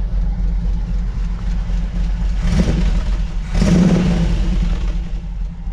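Jeep CJ7 engine idling through a true-dual exhaust with headers and two Borla mufflers and no catalytic converters, a quiet exhaust note with a slight lope. Two brief louder swells come in the middle.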